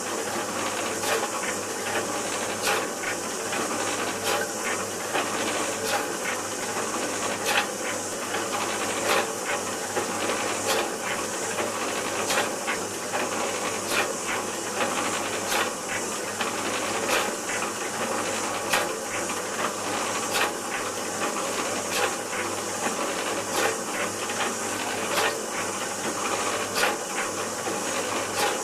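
1945 MacEwans LBG100 bore pump running, driven by belt from its single-phase electric motor, as it builds pressure in the tank: a steady hiss with a regular knock about every 0.8 seconds.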